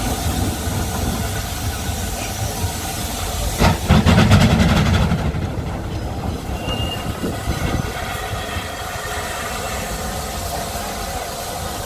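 Rebuilt Merchant Navy class steam locomotive 35018 British India Line starting its train, with steam hissing from the cylinder drain cocks. About four seconds in comes a brief loud burst of rapid exhaust beats as the driving wheels slip.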